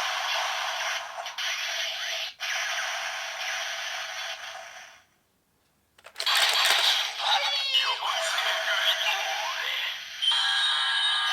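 Electronic transformation-belt toy playing music, sound effects and voice calls through its small built-in speaker, thin with no bass. It stops for about a second near the middle, then starts again.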